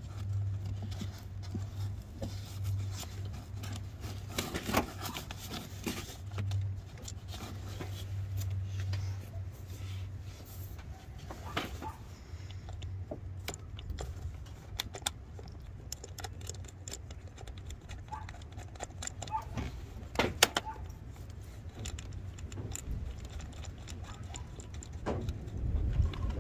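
Scattered metallic clicks and clinks of a ratchet and extension being worked on a spark plug deep in an engine bay, loudest about twenty seconds in. A low steady rumble sits underneath for the first ten seconds or so.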